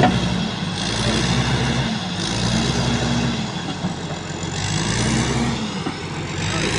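Komatsu bulldozer's diesel engine running and revving up and easing off again about four times, as the machine is worked into place.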